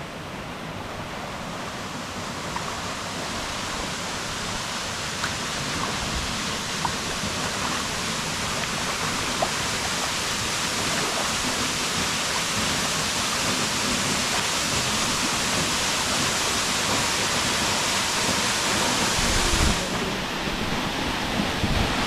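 Waterfall rushing, growing steadily louder as the kayak is paddled toward it, then easing off slightly near the end.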